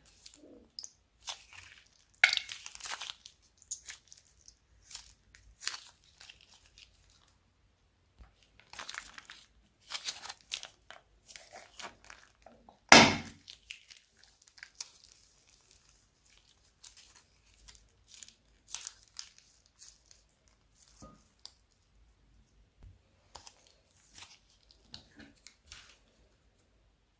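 Plastic bags crinkling and tearing and slime being worked by hand, as a string of irregular crackles and rustles. One louder crackle comes about halfway through.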